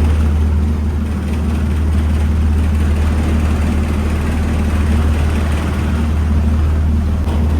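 Ferry's engines droning steadily at cruising speed, a constant low hum with an even rushing noise over it.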